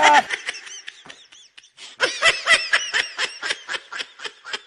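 A high, rapid snickering laugh: short pulses, about six or seven a second, starting about two seconds in and fading toward the end, with a few faint chirps before it.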